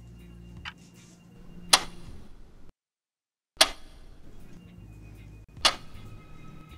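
Wall clock ticking: one faint tick, then three sharp, loud ticks about two seconds apart, each with a short ring, over a faint low hum. The sound drops out completely for about a second before the second loud tick.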